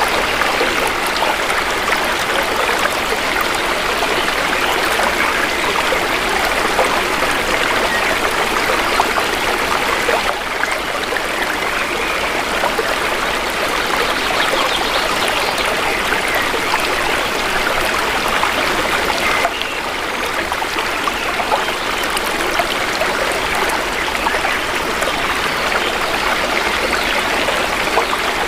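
Shallow river water flowing and trickling steadily, with a slight change in tone about ten seconds in and again near twenty seconds.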